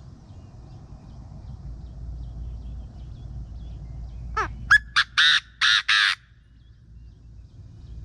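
Chinese francolin calling loudly: one or two quick rising notes, then about four loud, harsh notes in quick succession, lasting about two seconds from around four seconds in. It is the morning territorial call that is used to lure wild francolins to a caged decoy. A faint low rumble runs underneath.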